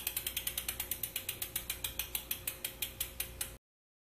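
MOB mountain-bike rear hub's freewheel ratcheting as the wheel coasts, a rapid run of sharp clicks that slows steadily as the wheel spins down. It cuts off suddenly near the end.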